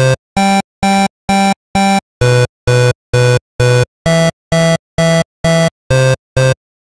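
FL Studio's 3xOsc synthesizer playing back a pattern of short, detached two-note chords, about two a second. Each chord sounds four times before the harmony moves. Playback stops shortly before the end.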